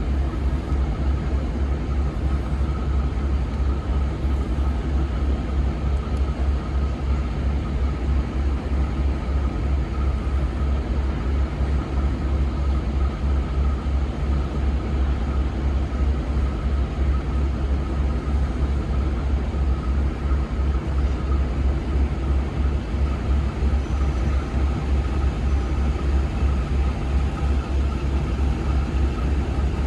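Diesel locomotive engine idling: a steady, rapidly pulsing low throb with a faint steady whine above it.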